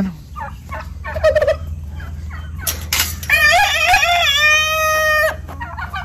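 Farmyard poultry calling: short calls about a second in, then one long call of about two seconds starting a little after three seconds, wavering at first and then held on one steady note.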